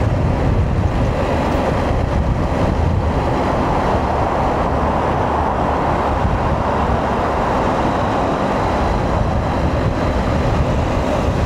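Steady rush of wind and road noise from a KTM 890 SMT motorcycle being ridden, swelling a little in the middle.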